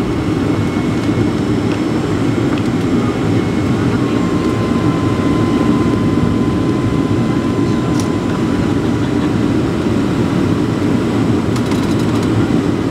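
Steady cabin noise of a Boeing 757-300 airliner in flight: an even roar of airflow and engines. A faint steady whine comes in about four seconds in, and a few light clicks fall near the end.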